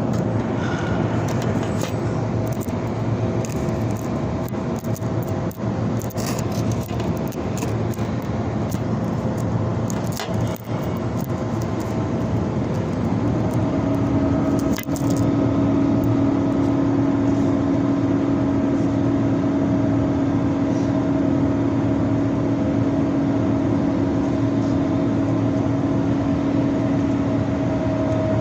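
Flux-core arc welding a vertical-up hot pass: the arc crackles and pops steadily while it fills a wide root gap. A steady machine hum with a low tone comes in about halfway through.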